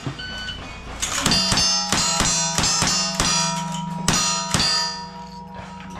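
A short electronic shot-timer beep, then from about a second in a rapid string of lever-action rifle shots, roughly three a second, with the steel targets ringing between them.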